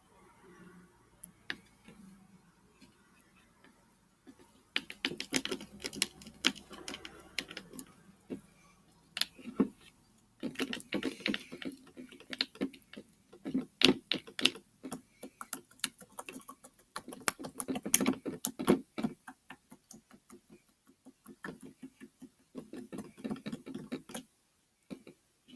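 Mixing utensils click and tap against a plastic bowl as sticky glue-and-borax slime is stirred, in rapid bursts with short pauses starting about five seconds in.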